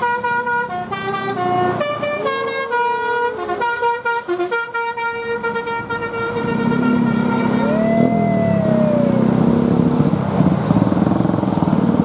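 Tour bus's telolet 'Basuri' musical horn playing a melody of short stepped notes for about five seconds. Then engine noise of the passing bus and motorcycles grows louder.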